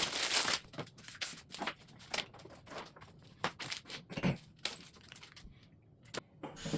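Handling noise as TV wall-mount brackets are fitted to the back of a television: irregular clicks, knocks and rustling, quieter for a moment about five seconds in.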